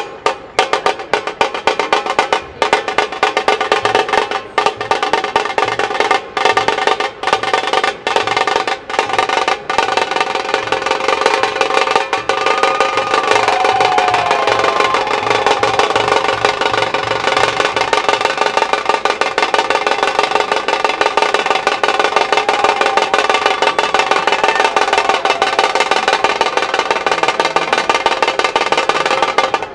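Dhol tasha ensemble drumming: big double-headed dhol barrel drums with tasha snare drums. Separate, spaced strokes for the first ten seconds or so build into a fast, continuous roll that stops abruptly at the very end.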